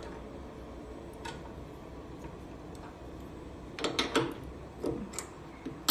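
Light clicks and taps from handling zipper samples and the test fixture during a pin box strength test: one about a second in, a quick cluster about four seconds in, and a sharper click at the very end.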